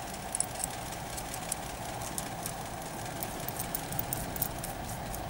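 Faint small metallic clicks and ticks as a brass retaining ring is threaded by hand into an aluminium eyepiece tube, over a steady background hum.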